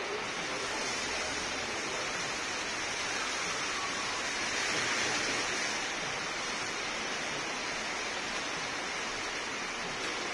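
Steady hiss of rain falling, a little louder for a couple of seconds around the middle.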